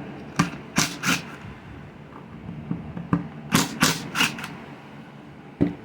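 Sharp metallic clicks and taps of hand tools working the screws on a pole saw's cutting head, in two quick clusters of three and once more near the end.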